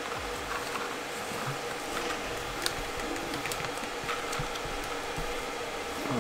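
Steady room noise, a hiss with a faint low hum, with a scatter of light clicks and rustles from a plastic face mask being handled.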